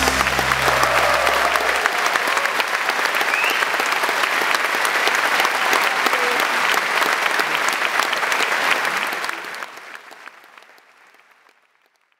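Theatre audience applauding with steady, dense clapping; the last low note of the music holds for the first two seconds and stops. The applause fades out over the final few seconds.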